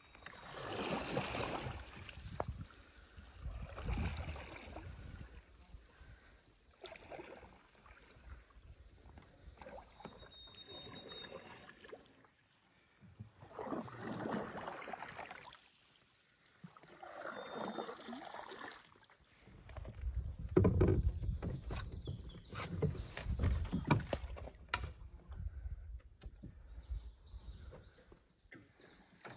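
Canoe paddle strokes in calm water, a swish every three to four seconds. About two-thirds of the way through comes a louder stretch of knocks and low rumbling against the canoe hull.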